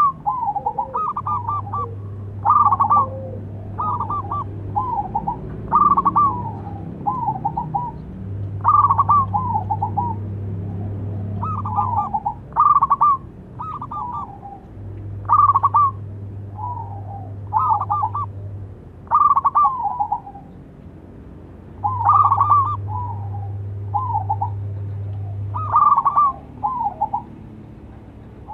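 Zebra dove (perkutut) cooing: its song of quick staccato coos repeats, with a louder phrase about every three seconds trailing off into softer notes.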